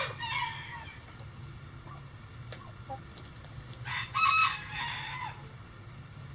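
Backyard chickens calling, with a short rooster crow about four seconds in and another call trailing off at the very start.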